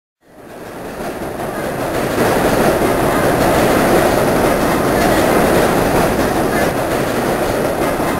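Loud, steady rumbling street noise that fades in over the first two seconds and then holds.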